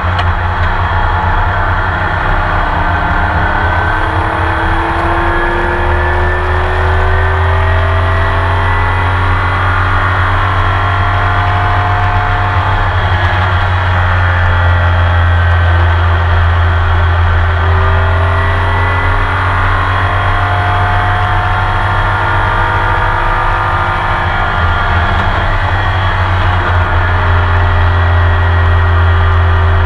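Porsche 911 RSR's flat-six racing engine heard from inside the car at full race pace, its pitch climbing again and again as it pulls through the gears, over a constant low drone.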